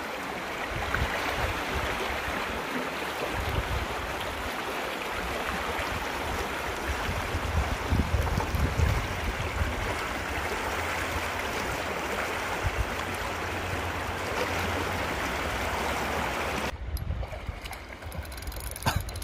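Shallow rocky river flowing over stones: a steady rushing babble of water, with an uneven low rumble underneath. The water sound cuts off suddenly near the end, leaving it much quieter.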